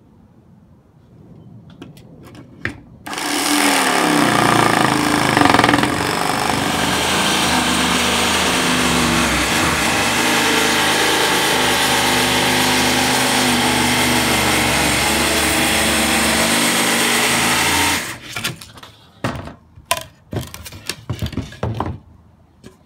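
Corded jigsaw cutting a circle through plywood, starting about three seconds in and running steadily for about fifteen seconds before it stops. A scatter of sharp knocks and clicks follows.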